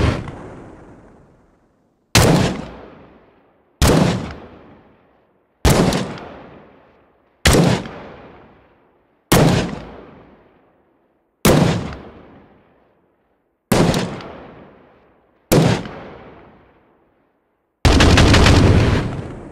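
M16 rifle firing: eight separate sharp reports about two seconds apart, each ringing out and dying away over a second or so. Near the end comes a continuous burst of automatic fire lasting about two seconds.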